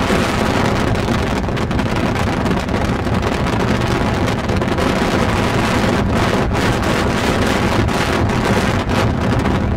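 Steady rush of wind over the microphone with the road noise of a moving car.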